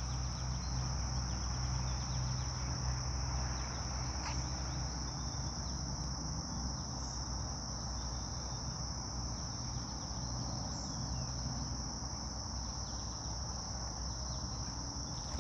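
Steady, high-pitched chorus of insects droning without a break, with a low steady hum underneath.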